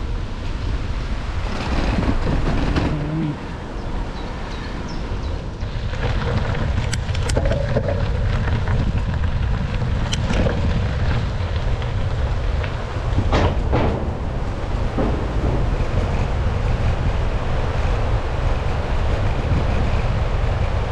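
Wind buffeting the microphone of a camera carried along on a moving bicycle: a steady low rumble, with a few sharp clicks and knocks.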